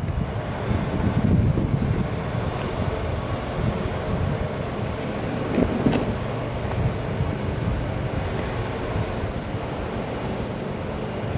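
Wind rumbling unevenly on the microphone over steady outdoor background noise, with one short knock about six seconds in.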